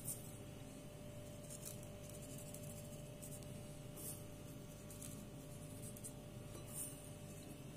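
Faint, brief rustles and light crackles of sesame seeds being pinched from a glass bowl and sprinkled onto soft dough rolls, a handful of times spaced a second or so apart, over a faint steady hum.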